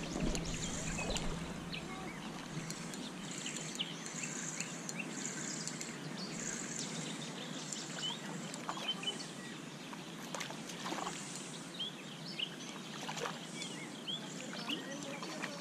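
Small birds chirping repeatedly over a steady outdoor hiss, with scattered faint clicks.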